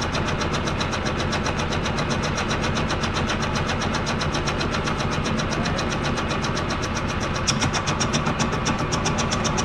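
Vertical milling machine cutting a valve relief into an aluminum piston: the spindle runs steadily under a fast, even pulsing of the cutter through the metal, getting a little louder near the end.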